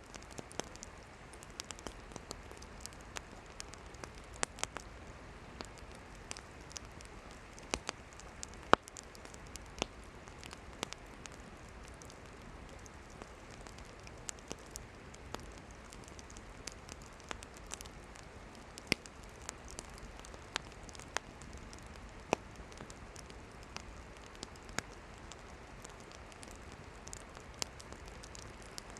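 Wood campfire crackling: irregular sharp pops and snaps of burning firewood over a steady soft hiss, with one louder snap about nine seconds in.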